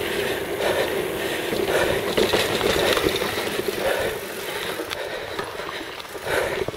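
Mountain bike rolling down a dirt trail: tyres running over the packed dirt and wind rushing across the camera microphone, in uneven swells.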